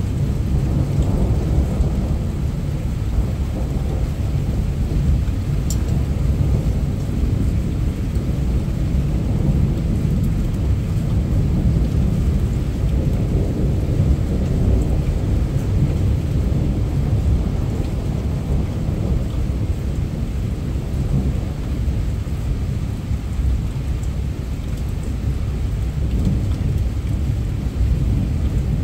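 Heavy rain falling steadily, picked up by a mobile phone's microphone, with a deep, even rumble underneath.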